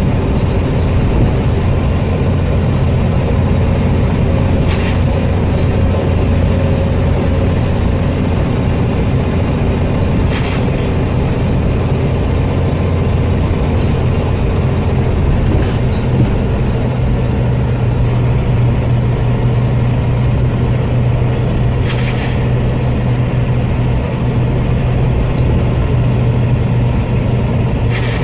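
Scania OmniCity bus running, its engine and road noise a steady drone, broken by about five short sharp air hisses ("sneezing"), one every five to six seconds. The uploader puts the sneezing down to worn-out air tanks.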